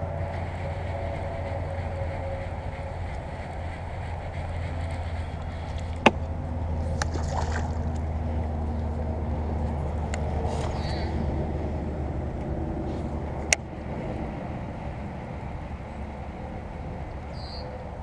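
Baitcasting reel being cranked through a lure retrieve over a steady low rumble, with two sharp clicks about six and thirteen seconds in.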